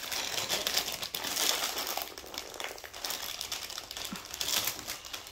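Crinkly snack-chip bags rustling and crackling continuously as they are handled and hands reach inside.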